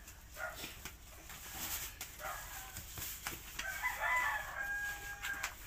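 A rooster crows once in the background, one held call of about a second and a half in the second half. Throughout there is the crinkly rustle of silver plastic sauna-suit trousers being pulled on.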